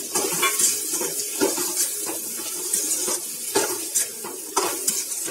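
A spoon stirring drumstick pieces and tomato-onion masala in a metal kadai, scraping and knocking against the pan at irregular intervals over a light sizzle.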